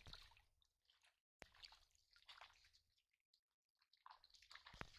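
Faint small splashes and slurping at the water surface from fish moving and feeding in shallow water, coming in several brief bits with short quiet gaps.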